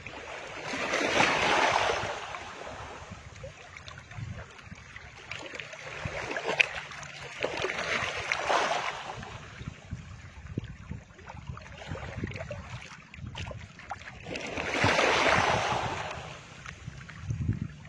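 Waves washing against a bamboo platform over choppy water: a rushing swell of water that rises and fades three times, about seven seconds apart, with small knocks and clicks in between.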